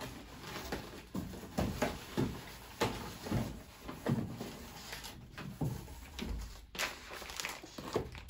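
Plastic bag crinkling and cardboard scraping and knocking as an espresso machine wrapped in a plastic bag is lifted out of its cardboard box, in irregular rustles and bumps with a sharper knock about two-thirds of the way through.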